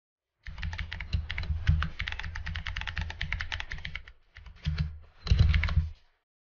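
Computer keyboard typing: a fast run of keystrokes for about three and a half seconds, then two short bursts of keys, the last the loudest.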